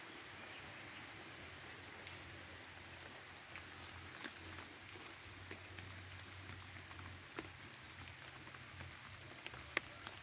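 Steady rain falling, a constant hiss with scattered taps of individual drops and one sharper drip near the end.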